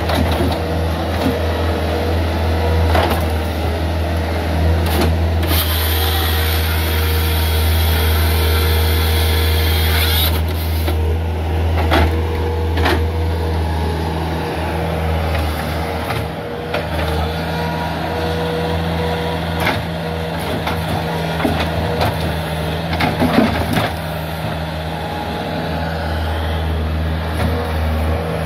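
Bobcat S300 skid steer's diesel engine running steadily under hydraulic load as its grapple saw handles logs, with scattered knocks of logs. A loud hiss lasts about five seconds in the first half.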